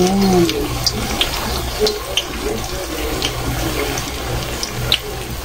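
Banana blossom patties deep-frying in hot oil in a wok: a steady sizzle with scattered crackles and pops.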